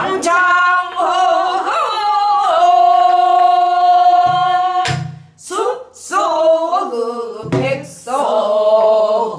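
A woman singing a Korean danga in pansori style, with bending, ornamented pitch and one long held note in the middle. A few strokes on a buk barrel drum, played by the singer herself, mark the rhythm, around the middle and near the end.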